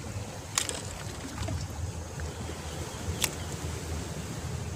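Wind rumbling on the microphone with two sharp clicks, one about half a second in and one a little after three seconds.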